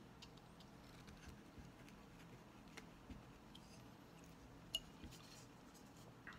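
Near silence with faint, scattered clicks of a carving knife cutting into a small wood block. One click about five seconds in is slightly louder.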